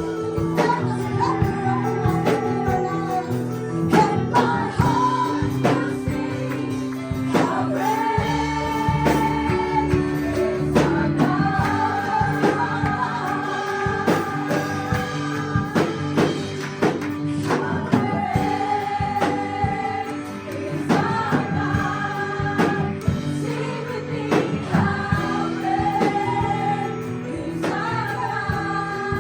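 Live worship music: a group of singers holding long notes of a praise song over a steady band accompaniment with frequent percussion hits.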